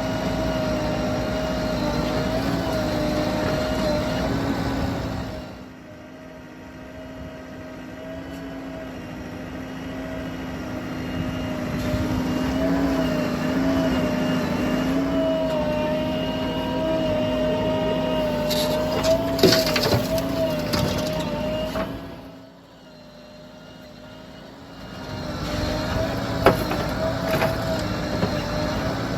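Diesel engine of a JCB 3DX backhoe loader running under working load while it digs and loads mud, its note wavering up and down with the hydraulics. It is quieter twice for a few seconds, and there are a few sharp knocks about two-thirds of the way through and again near the end.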